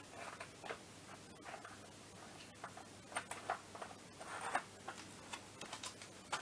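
Scattered light clicks, taps and small scrapes of metal hand tools and parts against the engine casing during two-stroke scooter engine reassembly, with no steady rhythm.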